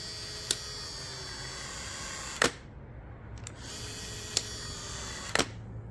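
Ryobi 18-volt cordless caulking gun's motor whirring as it drives the plunger, in two runs of about two seconds each with a sharp click as each run stops.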